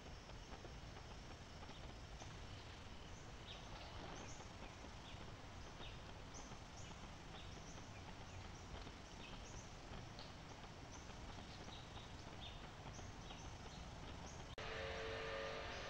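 Faint outdoor ambience: a steady hiss with scattered short, high chirps at an irregular pace of roughly one or two a second, like small birds calling at a distance. Near the end it switches abruptly to a louder steady noise with a few steady hum-like tones.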